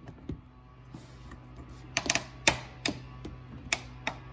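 Metal clicks and snaps of needle-nose pliers working at a coolant hose spring clamp: a quick cluster of sharp clicks about two seconds in, then a few single clicks, over a steady low hum.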